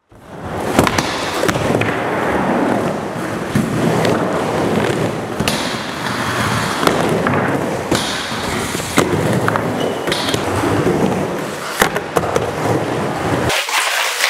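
Skateboard wheels rolling through a plywood bowl in a steady rumble, with sharp clacks and knocks from the board and trucks hitting the ramp and metal coping every second or two.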